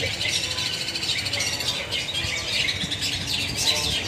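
Several caged long-tailed shrikes (cendet) singing at once from their contest poles: a dense, overlapping stream of rapid, high chirping notes that never pauses.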